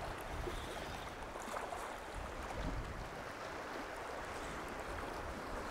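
Small waves lapping and washing over a rocky shoreline: a steady, even wash of water.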